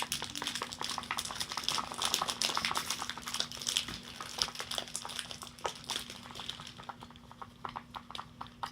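Slime being mixed and squished by hand: a dense run of wet crackling and popping that thins out near the end.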